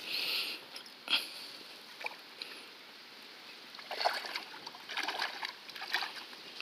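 Hooked peacock bass thrashing at the water's surface, splashing repeatedly for about two seconds from around four seconds in. A sharp click comes about a second in.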